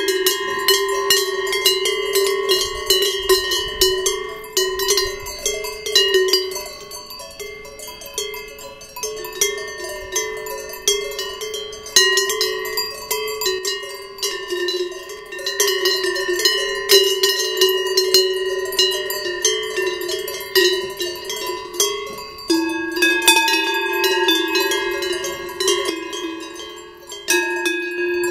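Large cowbells on grazing cows clanging irregularly as the cows move, several bells ringing at once with their tones overlapping. The nearest bell is the loudest, and its main tone shifts lower about two-thirds of the way through.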